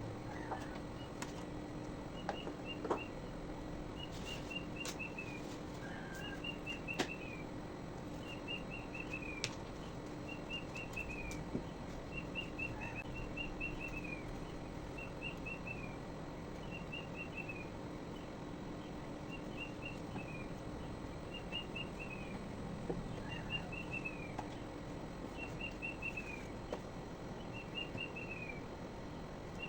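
A bird calling over and over: a short phrase of four or five quick notes falling in pitch, repeated about every one and a half seconds. A steady low hum and a few light clicks sit underneath.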